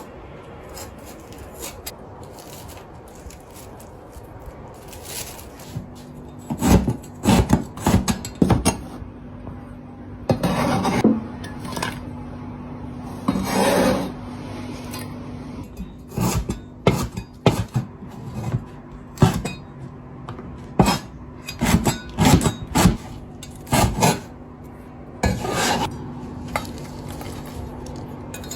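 Kitchen prep: a utensil scraping and knocking against a wooden cutting board and dishes, in irregular strokes with a few longer rasping scrapes. A low steady hum comes on about six seconds in.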